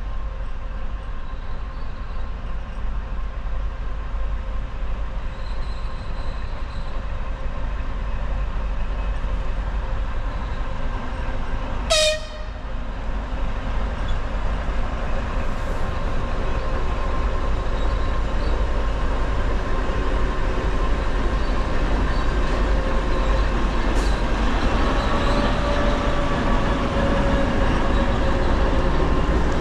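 A 2TE116U twin-section diesel locomotive hauling a freight train approaches, its running sound growing steadily louder. A brief sharp horn toot sounds about halfway through.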